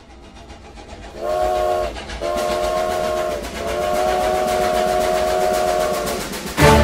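Steam locomotive sound effect: chuffing that grows louder, then a multi-tone chime whistle sounding three times, a short blast, a longer one and a long one. Music starts right at the end.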